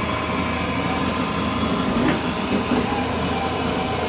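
Motor of a piling machine running steadily at a constant hum, with a light click about two seconds in.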